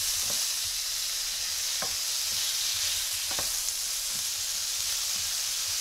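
Diced ham, mushrooms, spring onions and tomatoes sizzling steadily in a hot frying pan, stirred with a wooden spoon that scrapes against the pan three times, about a second and a half apart.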